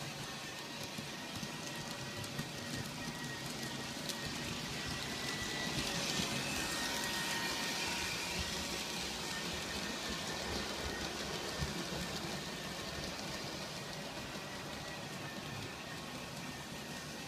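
G scale model train running on its track, a steady running noise with a few small clicks. It grows louder about six seconds in and eases off after about ten seconds.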